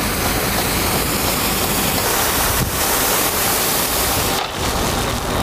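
Water rushing from a fire truck's Rosenbauer roof turret and pouring over the cab's windshield, a steady loud spray.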